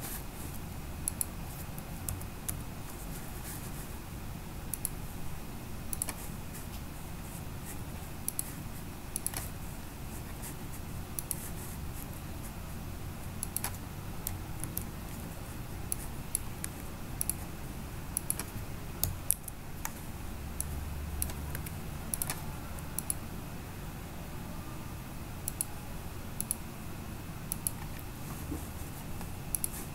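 Irregular clicks of a computer keyboard and mouse, scattered through the stretch, over a steady low hum and hiss.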